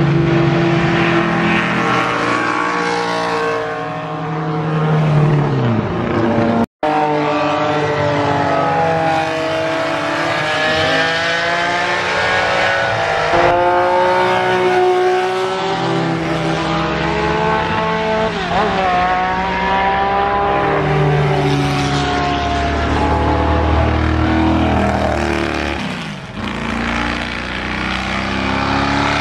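BRM racing car engines running hard on track, several at once, their pitch rising and falling through gear changes and passes. Early on these are the supercharged V16 BRMs, and later a 1970s BRM Formula One car goes by. There is a brief gap in the sound about seven seconds in.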